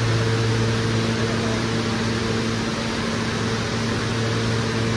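R160 subway car standing at the platform, its air-conditioning and electrical equipment running: a steady low hum with a few higher fixed tones over an even hiss.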